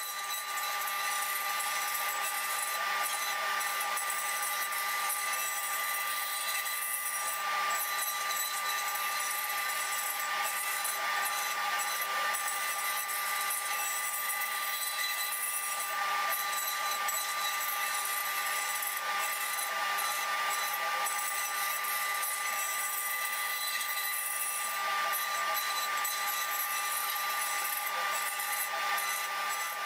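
CNC router spindle running with a steady high whine while its 1/8-inch ball-nose bit carves walnut in a 3D finishing pass, over a constant rasp of cutting.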